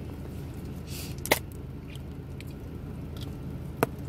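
Mayonnaise squeezed from a plastic squeeze bottle onto shredded cabbage slaw, with two sharp clicks about two and a half seconds apart over a steady low hum.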